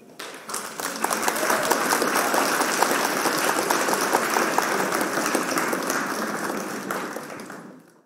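Applause sound effect: many hands clapping, swelling in over the first second, holding steady, then fading out over the last second and a half.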